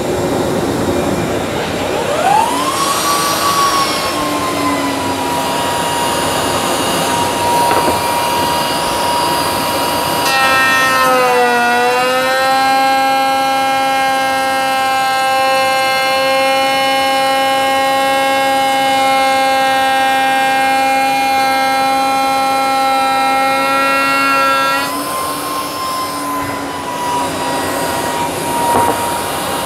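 Table-mounted router with a Harbor Freight Warrior quarter-inch-shank 45-degree chamfer bit spinning up to a steady high whine. About ten seconds in, the pitch dips and the tone grows fuller as the bit bites into the board's edge, and it runs steadily under load through the cut. About 25 seconds in, the pitch rises again as the bit comes free of the wood.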